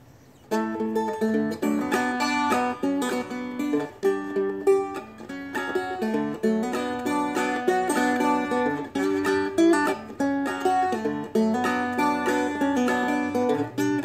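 Seagull Merlin, a four-string dulcimer-style instrument, played two-finger clawhammer style: a picked melody over ringing drone strings in a steady rhythm, starting about half a second in.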